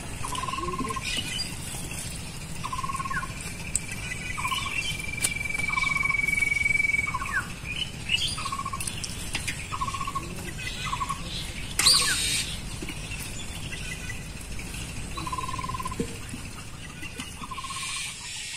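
A bird repeats a short, clear call about once a second while a thin steady high tone runs for the first several seconds. Behind them are scattered wet slaps and rustles as small fish are picked out of a net and dropped into a metal pot, with one louder slap about twelve seconds in.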